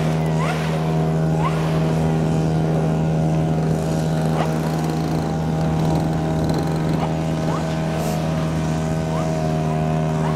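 Small model-aircraft engine idling steadily at one even pitch.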